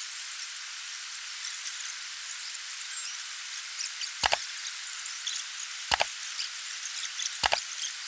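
Three double mouse-click sound effects, the first about four seconds in and the others about a second and a half apart, as an on-screen cursor presses subscribe-banner buttons. Under them runs a steady, thin hiss of falling water.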